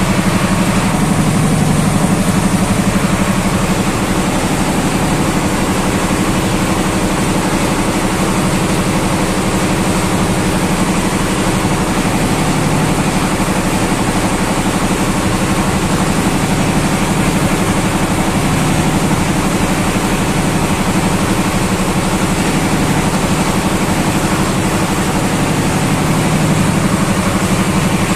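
An engine running steadily, a constant low hum that keeps the same speed throughout.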